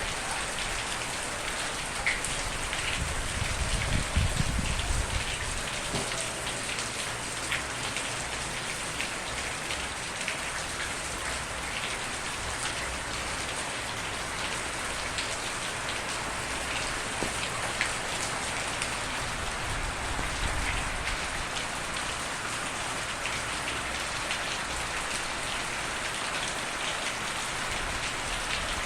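Steady rain falling on a surface: a dense hiss with scattered sharper drop ticks. A brief low rumble swells about four seconds in.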